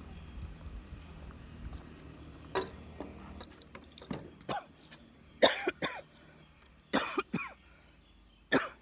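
A person coughing and clearing the throat in a string of short, sharp bursts, the loudest about halfway through.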